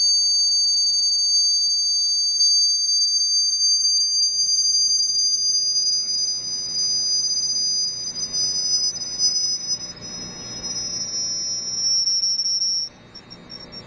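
Two high-pitched electronic test tones sounding together, one slowly rising and the other slowly falling until they nearly meet, with a fainter higher tone above. They cut off suddenly about 13 seconds in. These are the kind of tones used to drive cymatics patterns in water or sand.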